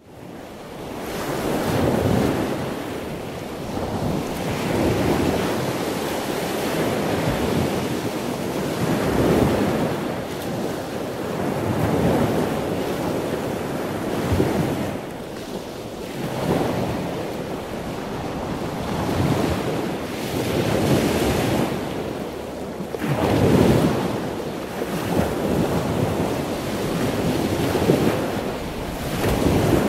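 Heavy surf breaking and washing against a boulder seawall, with wind noise. The sound surges and falls back every few seconds as each wave comes in.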